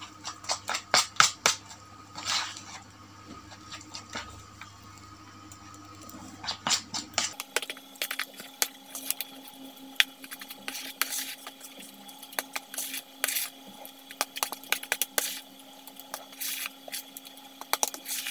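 Metal spoon stirring a thick, wet bait dough in a plastic basin: irregular clicks and scrapes of the spoon against the bowl, with the squish of the mixture.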